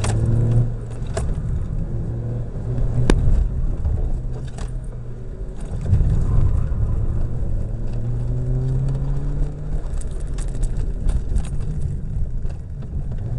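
Ford Ka engine heard from inside the cabin, revving up and down as the car is driven hard through a slalom course, its pitch climbing steadily for a few seconds past the middle. Sharp clicks and rattles from inside the car come and go over it.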